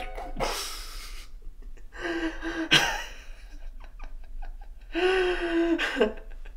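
A man crying: a sharp gasping breath, then two drawn-out sobbing wails, about two and five seconds in.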